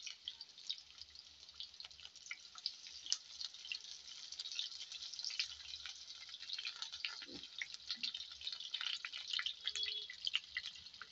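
Sliced onions frying in hot mustard oil in a kadai: a continuous sizzle of fine crackles and spits.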